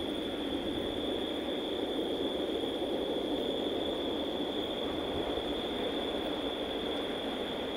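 Steady outdoor evening ambience: a continuous low, even rumble with a constant high-pitched insect trill over it, and no distinct events.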